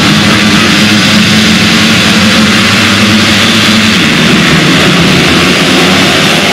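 A full start line of motocross bike engines revving hard together at the starting gate. Near the end the engine note changes as the pack launches off the line.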